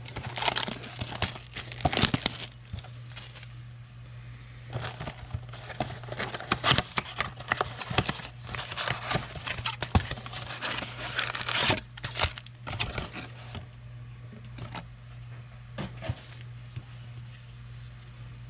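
Foil trading-card pack wrappers of 2020 Panini Prestige football cards being torn open and crinkled, busy for the first dozen seconds or so, then only a few scattered crinkles. A steady low hum runs underneath.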